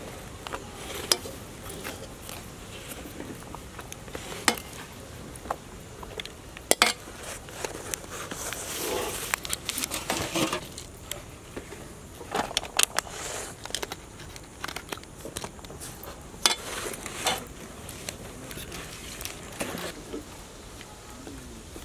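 Metal serving spoon clinking and scraping against a steel pan and aluminium foil containers as noodles are dished out, with crinkling of foil and scattered irregular clicks.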